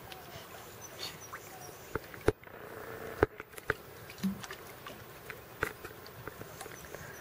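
Small splashes and lapping of pool water around a paddling puppy and a wading person: scattered sharp plips and clicks, with two louder ones about two and three seconds in.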